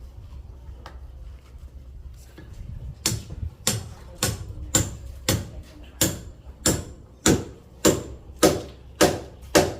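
Rhythmic hammering: sharp strikes, about one and a half to two a second, beginning about three seconds in and growing louder, over a low steady rumble.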